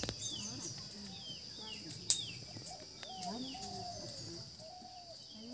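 Small birds chirping in short falling notes, repeated every half second or so, over fainter, lower wavering calls. There is a single sharp snap about two seconds in.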